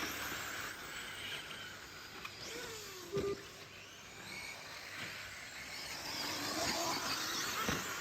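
Electric RC short course trucks running around the track, their motors whining and gliding up and down in pitch as they accelerate and brake, with a short louder sound about three seconds in.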